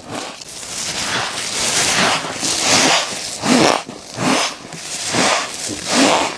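Close-miked bites and chewing of humidifier-grown freezer frost: a steady run of crunches, a little more than one a second.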